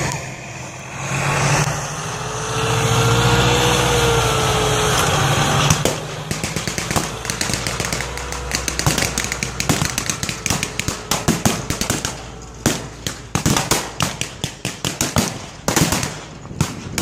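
Tracked armored vehicle running, with engine and track noise and a whining note that rises and falls. About six seconds in, a rapid crackle of blank gunfire and pyrotechnic pops takes over and grows denser toward the end.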